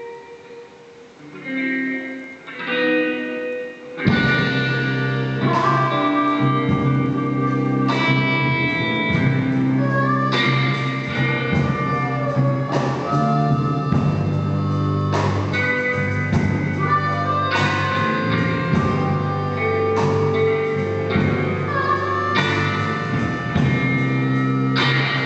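Blues band music: a guitar plays alone for the first few seconds, then the full band, with bass and drums, comes in about four seconds in and plays on.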